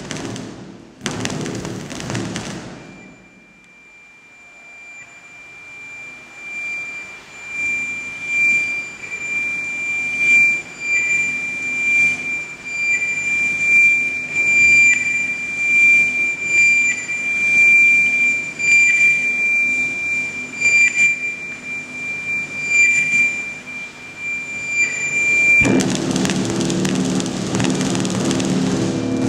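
Electronic sound score played over loudspeakers: a dense, noisy passage breaks off about three seconds in, leaving a single high, steady sine tone that swells and fades in pulses. About 26 seconds in, dense, louder sound with low notes cuts back in abruptly.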